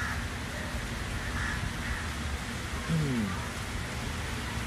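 Steady background hiss of outdoor ambience, with a brief falling sound about three seconds in.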